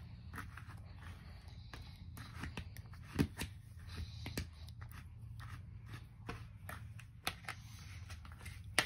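Small toy scissors snipping at a doll's hair, a string of irregular small clicks, the loudest about three seconds in and again just before the end, over a low steady hum.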